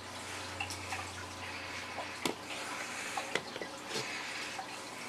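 A few short, sharp clicks and light taps from hands handling wire and tools against a plastic tackle box, over a steady low hiss.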